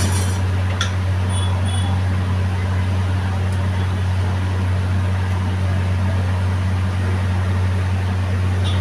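Steady low machine hum, with a couple of clicks near the start and a brief pair of short high beeps a little over a second in.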